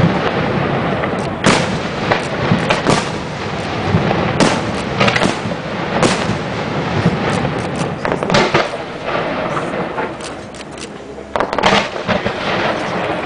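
Aerial firework shells bursting in a continuous barrage: dense bangs and crackling, with several louder booms standing out from the rest and a short lull about ten seconds in.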